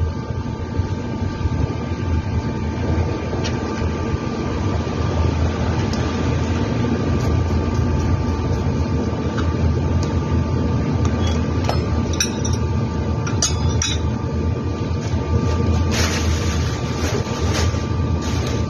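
Scattered metallic clinks and scrapes of scooter CVT parts being handled and set down, busier near the end, over a steady low hum.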